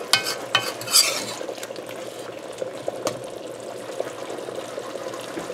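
Metal spoon stirring a thick, simmering curry in a large metal pot, scraping and clinking against the pot, loudest in the first second or so. Beneath it a steady hiss of the curry cooking on the stove, with small clicks of the spoon now and then.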